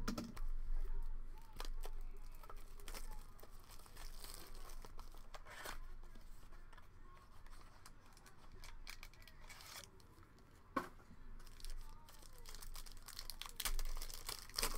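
Packaging of a sealed trading-card box and its foil pack being torn open and crinkled by hand: an irregular string of sharp rips and crackles, with the foil wrapper torn near the end.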